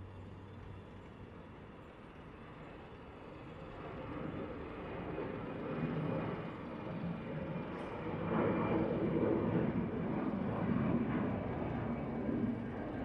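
Airbus A320 jet engines at takeoff power, growing louder over several seconds as the airliner passes, then cutting off suddenly near the end.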